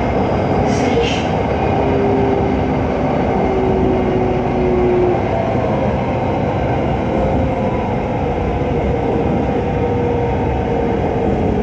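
Running noise of an electric commuter train on an elevated line, heard from inside the carriage: a steady rumble with faint whining tones that drift slightly in pitch.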